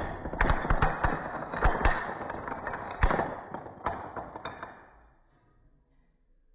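Wooden plank blocks from a tall tower crashing down onto a hardwood floor: a sudden crash, then a clatter of many blocks hitting and bouncing, with a few last knocks before it dies away after about five seconds.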